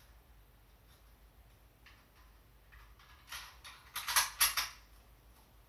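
A quick series of small plastic-and-metal clicks and clacks from an airsoft Hunter sniper rifle being handled, bunched together a little over three seconds in, with the two loudest close together near the end of the run.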